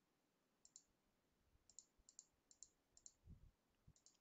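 Faint computer mouse clicks, about six spread irregularly, each a quick double tick of button press and release, as checkboxes are unticked one by one. There is a soft low bump about three seconds in.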